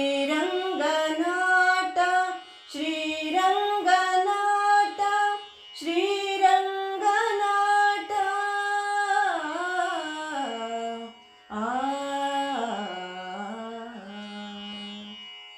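A woman singing the closing phrases of a Kannada devotional song (Devaranama) in Carnatic style, with long gliding, ornamented notes. The singing breaks briefly about eleven seconds in, then resumes with a held low note that fades out near the end.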